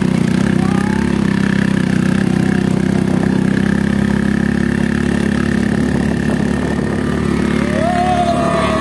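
Motorcycle engine running at a steady pace under way, heard from on the bike itself.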